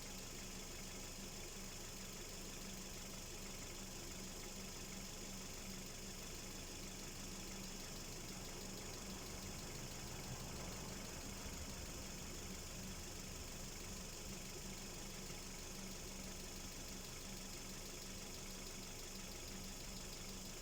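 Hyundai Solaris G4FC 1.6-litre four-cylinder petrol engine idling steadily when hot. The owner is chasing a ticking knock that appears only on a hot engine and comes and goes by itself.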